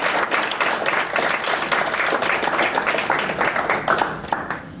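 Audience applauding, many hands clapping rapidly, dying away near the end.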